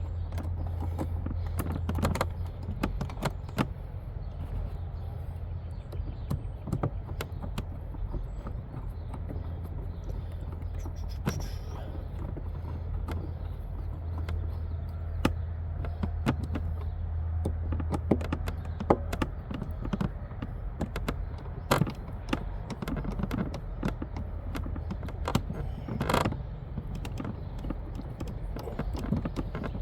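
Irregular clicks, knocks and creaks of plastic trim and latch parts being handled and pressed back into place on a motorcycle saddlebag, with two louder knocks near the end. A steady low hum sits underneath for the first two-thirds.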